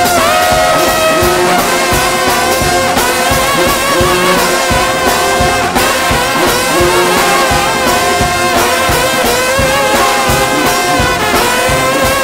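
Trombone-led gospel shout band playing a tune in full brass harmony, held notes wavering with vibrato over a steady beat.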